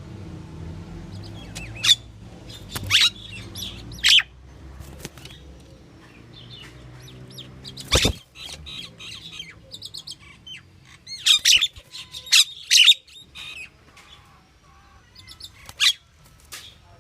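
Pied myna calling: a string of separate short whistles, chatters and squawks, with a cluster of loud calls about two-thirds of the way through. A steady low hum runs underneath in the first half.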